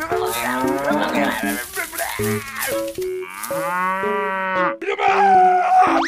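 A cow mooing over and over, with a long, drawn-out moo about halfway through and another just before the end. Light background music with short repeated notes plays underneath.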